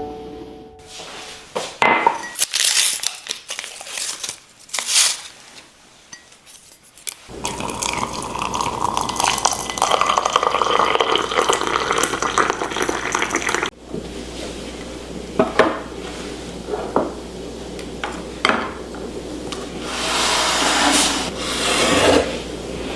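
Kitchen sounds of breakfast being made: dishes and utensils clink and knock. In the middle a steady rushing noise runs for about six seconds and cuts off abruptly.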